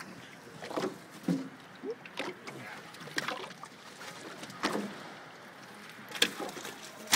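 Water lapping and sloshing against the side of a fishing skiff, with a dozen or so sharp knocks and splashes at irregular moments.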